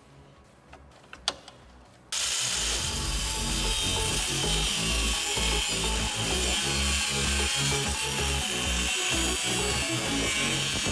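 A few faint clicks, then about two seconds in a power tool starts abruptly and runs steadily, cutting to trim a sheet-metal body panel piece.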